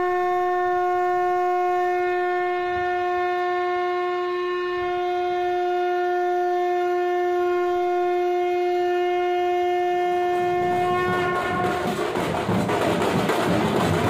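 A conch shell (shankh) blown in one long steady note that stops about eleven seconds in. A couple of seconds later, large dhol drums start playing loudly near the end.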